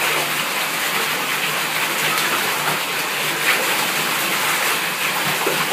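Steady rush of water pouring from a bathtub faucet into a filling tub, with light splashing as a Labrador retriever paws and mouths at the water.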